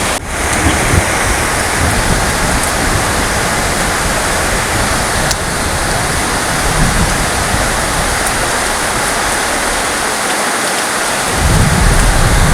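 Heavy rain falling steadily, a dense hiss, with a low thunder rumble underneath that dies away about eight seconds in and swells back up near the end.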